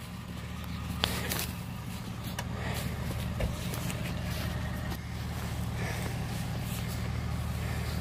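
Off-road SUV's engine running steadily at low revs, a deep even hum, with a few light knocks and one dull thud about halfway through.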